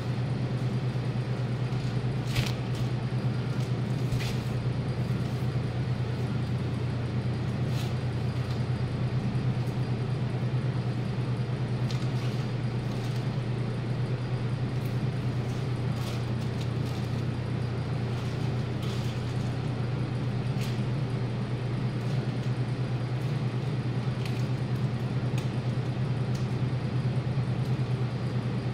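A steady low machine hum, with a few faint short rustles and clicks of plastic wrap being handled.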